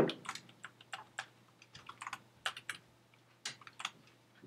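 Typing on a computer keyboard: faint, irregular keystrokes with a short pause past the middle.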